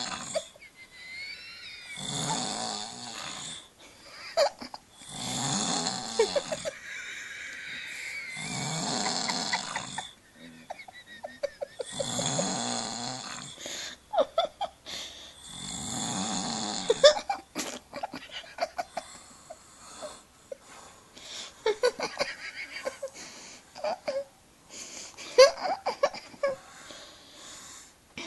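A man snoring in his sleep: six long snores, one about every three to four seconds. After them the snoring breaks up into short, irregular snorts and splutters.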